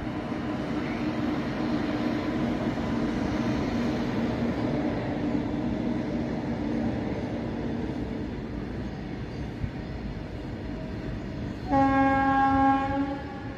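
Freight train hauled by two WAG-9HC electric locomotives passing: a steady hum and rumble as the locomotives go by, easing into the rolling of the wagons. A train horn sounds once for about a second near the end.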